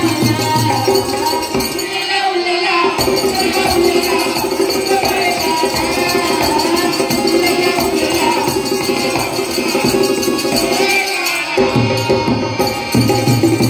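Live lokgeet folk song over a PA: a woman sings over harmonium and dholak, with a jingling hand percussion keeping the beat. The drum drops out for about a second shortly after the start and again near the end.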